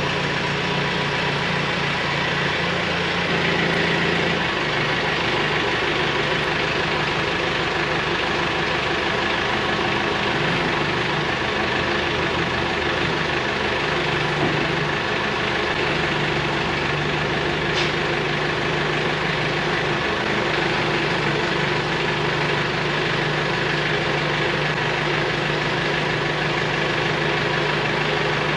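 Backhoe loader's diesel engine running steadily at low revs as the machine creeps slowly forward.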